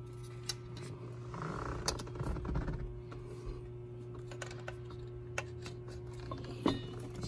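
Screwdriver tips scraping and clicking against the outboard-mounted raw-water pump's rubber impeller and metal housing while the old impeller is pried out, a few sharp clicks scattered among light scraping. A steady low hum runs underneath.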